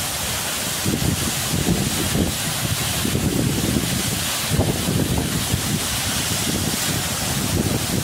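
Waterfall pouring down a rock face onto rocks, a steady loud rush of falling water heard close up, with low irregular buffeting on the microphone.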